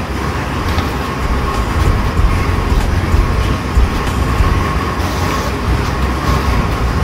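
440 cubic inch Ford Windsor small-block V8 with eight individual throttle bodies idling on an engine dyno at about 1,000 rpm, a steady deep rumble. A faint steady high whine sits above it.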